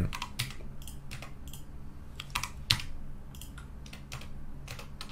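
Computer keyboard keys pressed one at a time for shortcuts: about ten separate, irregularly spaced clicks, the sharpest a little under three seconds in, over a low steady hum.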